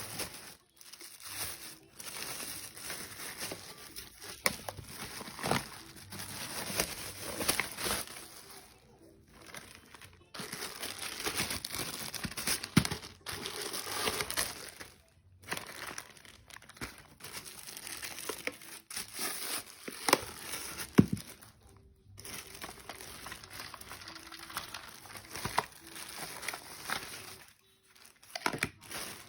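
Irregular crinkling and rustling handling noise with scattered clicks and knocks, broken by several short pauses.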